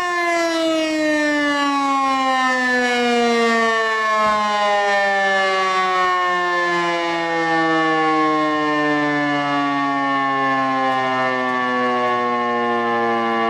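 Motor-driven civil-defence alarm siren winding down after its alarm signal: its single wailing tone slides slowly and steadily lower, with a fainter lower tone joining about four seconds in.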